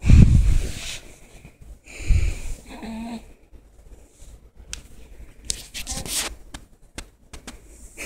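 Handling noise from a phone being moved about: two heavy thumps and rubbing on the microphone, the first right at the start and the second about two seconds in, then softer rustling, with a brief voice sound about three seconds in.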